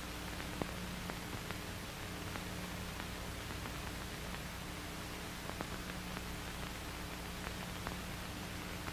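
Background noise of an old film soundtrack: steady hiss with a low hum underneath and scattered clicks and crackles.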